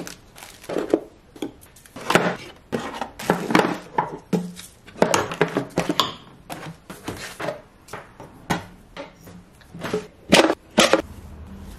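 Spice jars lifted out of a wooden drawer one after another, clicking and knocking against each other and against the wooden dividers, in an irregular clatter with two louder knocks near the end.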